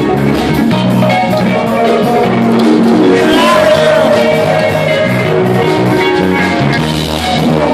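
Live rock band playing a song, with drums and guitar keeping a steady beat and a voice singing over it.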